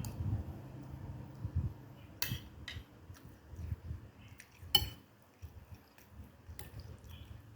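Cutlery clinking against plates and bowls while eating: a handful of sharp clinks, the loudest about five seconds in, with soft low knocks between.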